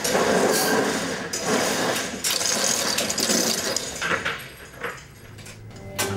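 Metal roll-up warehouse door rattling as it is raised, loudest over the first few seconds and then fading, with a sharp knock near the end as it stops.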